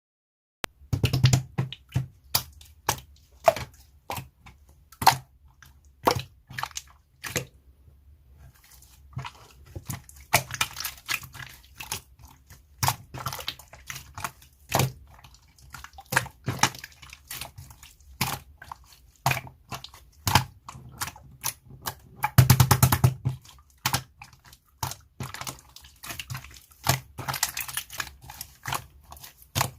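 Slime being pressed and squeezed by hand, making irregular sticky clicks and pops, with a longer, louder squelching burst of popping a little past the middle. It starts abruptly about half a second in.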